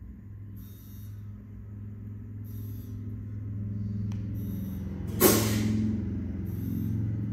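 A motor hums steadily and slowly grows louder, with faint short hisses about every two seconds. About five seconds in comes one sharp, loud burst of hissing air that dies away within half a second.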